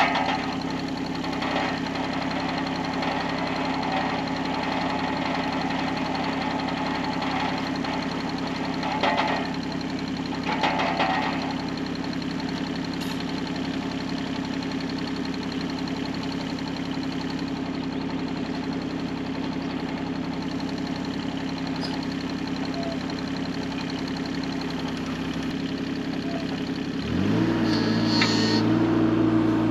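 A machine's engine running steadily at idle, with a couple of brief clanks partway through; near the end the engine speeds up to a louder, higher note.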